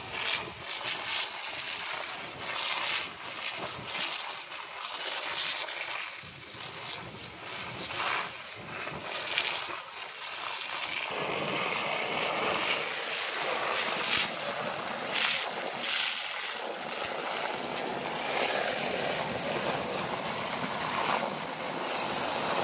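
Fire hose jet spraying water and splashing onto a house fire, a steady rushing hiss. The rush grows louder and fuller about halfway through.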